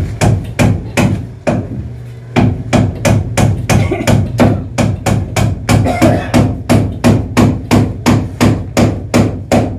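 Hammer blows: a few strikes, a short pause about two seconds in, then a steady run of about three blows a second, over a low steady hum.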